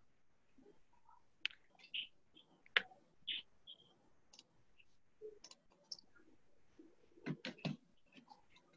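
Faint scattered clicks and ticks over quiet room tone, the sharpest a little under three seconds in and a quick run of several clicks about seven seconds in.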